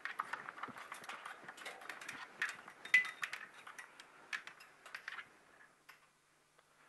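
Small clicks and rustling of hands working a manual-release cable and a short piece of its sheath, with the loudest click about three seconds in. The handling dies away about five seconds in.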